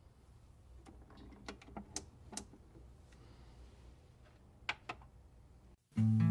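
Scattered sharp clicks and taps over a faint low hum, loudest about two seconds in and again near five seconds. The sound cuts out just before the end, when strummed acoustic guitar music begins.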